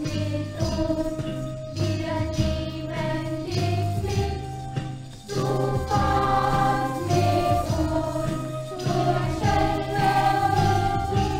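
Children's choir singing a song with instrumental accompaniment, a steady rhythmic bass and jingling bells.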